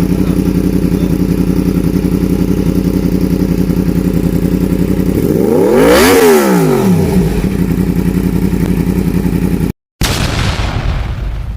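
Yamaha MT-10's crossplane inline-four idling with an even, lumpy pulse through an aftermarket SC Project exhaust. About six seconds in, the throttle is blipped once: the revs rise and fall back to idle. Near the end the sound cuts out briefly and then fades.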